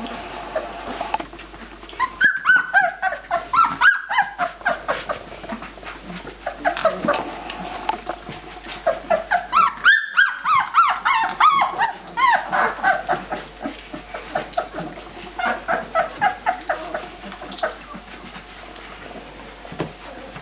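Young puppies whining and yelping in quick runs of short, high cries, several a second, coming in a few bouts with quieter stretches between.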